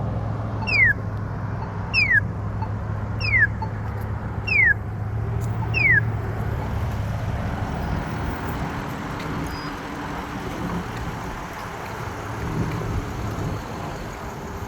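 A short falling chirp repeated six times, about 1.3 s apart, over the steady sound of traffic. The chirps stop about six seconds in, and traffic noise carries on.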